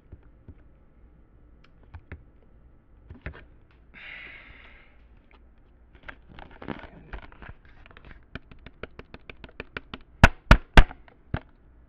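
Handling noise of a handheld camera held against its own microphone while someone tries to switch it off: scattered clicks and taps, a brief rustle, then a fast run of clicks. Near the end come three loud knocks in quick succession, the loudest sounds, then one more.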